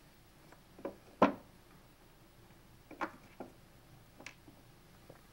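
A handful of short knocks and clinks of metal tooling being handled on a workshop shelf, the sharpest about a second in, over a low steady room hum.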